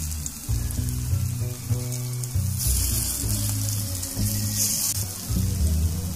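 Hot oil in a kadai sizzling as prawn-head and lentil fritters fry, the sizzle swelling louder for about a second around two and a half seconds in as more batter goes into the oil. Background music with low sustained notes plays under it.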